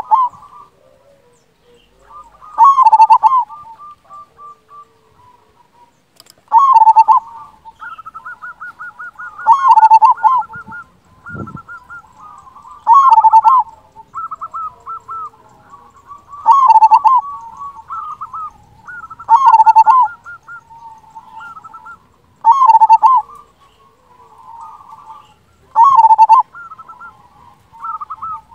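Zebra dove (perkutut) cooing: a loud call comes about every three to four seconds, with quicker runs of soft trilled notes in between.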